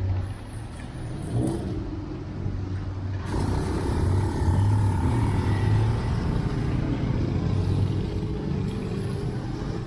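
A motor vehicle running, with a steady low engine or motor hum over road noise. The noise grows brighter about three seconds in, and the hum rises slowly in pitch near the end, as when the vehicle speeds up.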